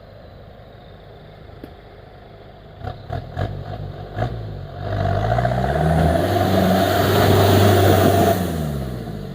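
Off-road 4x4's engine running low, then revved hard about five seconds in, its pitch rising and held high for a few seconds before easing off. A few sharp knocks come just before the rev, with a hiss of spinning tyres alongside it.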